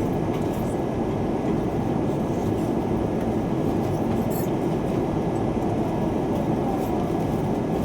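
Steady, even rushing rumble of a vehicle in motion, unchanging in level, with no distinct knocks or rhythm.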